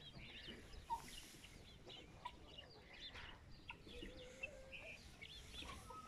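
Hens and other poultry clucking and calling faintly, with many short high chirps and one longer, steady call about four seconds in.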